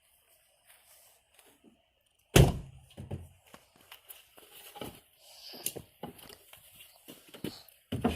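Car door shutting with a single heavy thunk about two seconds in, followed by scattered lighter knocks and handling noises.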